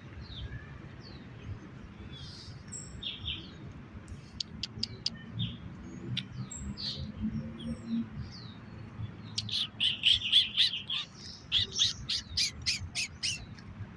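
Birds chirping with short high calls, then about halfway through a loud, fast run of sharp repeated calls that lasts about four seconds. A low hum runs underneath.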